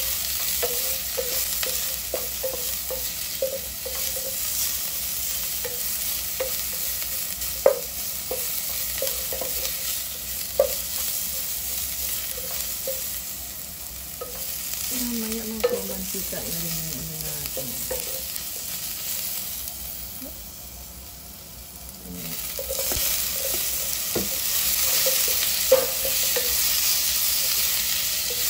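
Garlic, onion and ginger sizzling in hot oil in a nonstick pot while a wooden spatula stirs and scrapes them, with a few sharp knocks of the spatula against the pot. The sizzle dips a little past the middle, then grows louder near the end.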